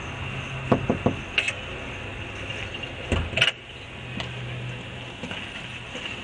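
Handheld camcorder handling noise while being carried through a shop doorway: three quick clicks about a second in and a louder knock around three seconds, over a steady low hum.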